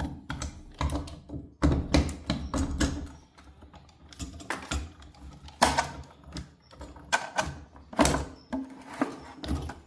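Long socket on a socket wrench tightening a bathtub faucet cartridge into the valve body: irregular metal clicks and knocks, a few of them louder.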